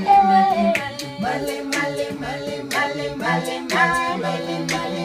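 A cappella vocal group singing a house song in harmony: a lead voice slides and holds notes over sustained backing voices. A steady clicking beat runs about twice a second under the voices.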